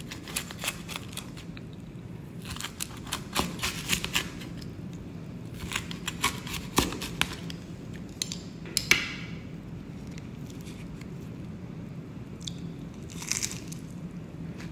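Pizza-cutter wheel rolling through a crisp chickpea-flour zaatar flatbread against a wooden cutting board: several separate bursts of crackling crunch and scraping, over a low steady hum.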